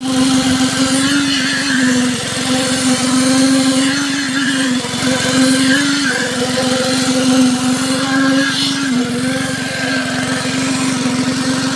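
Concrete needle vibrator running steadily with its poker plunged into wet concrete to compact it, a loud steady hum that drops slightly in pitch a few times.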